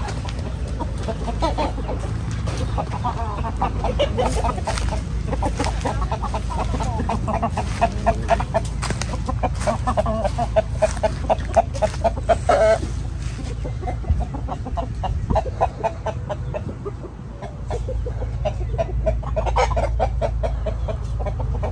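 Chickens clucking in quick runs of short notes, busiest midway, over a steady low rumble.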